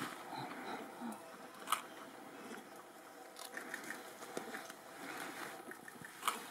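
Bamboo leaves and stems rustling and crackling as a golden monkey hangs among them and pulls at the foliage. Two sharp clicks stand out, one a little under two seconds in and one near the end.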